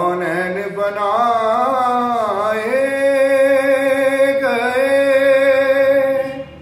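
A man singing a naat solo without accompaniment: one long sustained phrase whose pitch winds and dips about two seconds in, then holds steady with a slide around four and a half seconds in, breaking off shortly before the end.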